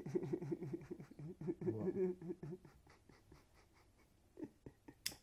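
A man laughing: a quick run of short, breathy ha's that fades out about two and a half seconds in. Faint ticks follow, and a single sharp click comes near the end.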